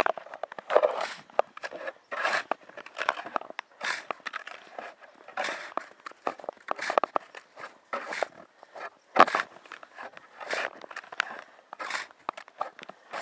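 Metal snow shovel digging into deep, wet snow: a crunching, scraping stroke roughly every second as the snow is cut and tossed aside.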